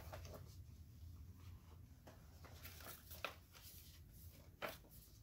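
Near silence, with faint paper rustling and two brief clicks, one about three seconds in and one near the end, as a paper card is handled.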